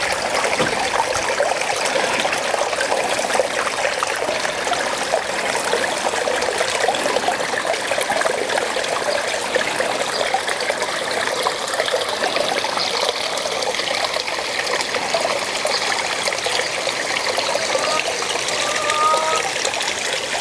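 Water from a small stone-step garden-pond waterfall trickling and splashing steadily down the stone ledges into the pond.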